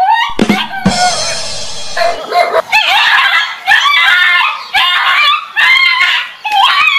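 A dog yelping and barking in alarm, a rapid run of high cries that bend up and down, with one longer, harsher cry about a second in.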